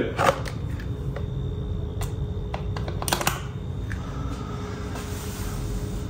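A few sharp plastic clicks around two and three seconds in, as a two-pin plug is pushed into a wall socket and a desk fan is handled, over a low steady hum.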